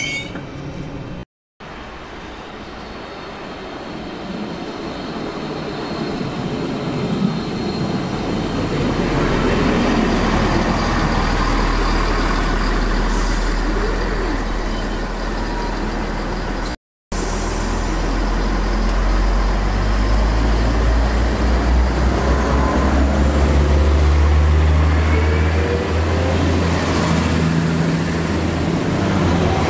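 Class 643 Talent diesel multiple unit moving along the platform, its diesel engines droning low under rail and wheel noise. The sound builds steadily through the first half and stays loud, broken by two brief silent gaps.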